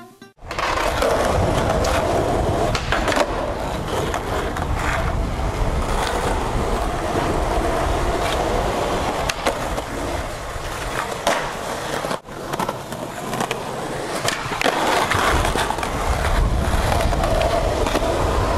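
Skateboard wheels rolling on concrete, with sharp clacks of the board popping and landing and a grind along a concrete ledge. There is a brief gap about twelve seconds in.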